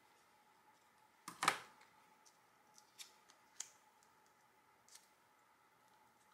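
Scissors set down with a clack on a wooden tabletop about a second and a half in, followed by a few light clicks and rustles of painted paper circles being handled and pressed together.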